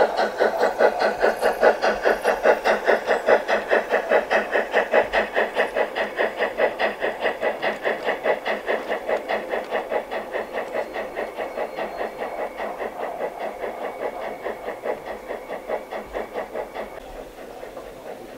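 Steady rhythmic chuffing from a G-scale model of the HSB Mallet steam locomotive 99 5901, about five chuffs a second, slowly fading as the train moves away.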